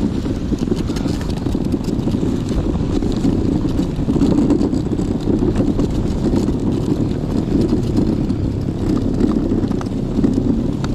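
Homebuilt electric tracked snow bike, driven by two electric motors, running through snow while towing a sled: a steady rumble from its tracks and drive.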